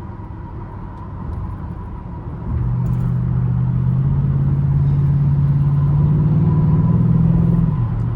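Ford Mustang GT's 4.6-litre V8 while driving. About two and a half seconds in it gets louder under acceleration, the engine note climbing slowly, then falls away near the end.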